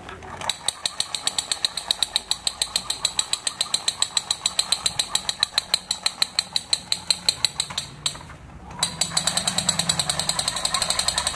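Black M16-style toy rifle firing its rattling sound effect: a long run of rapid, even clicks, a short break about 8 seconds in, then a faster, denser rattle.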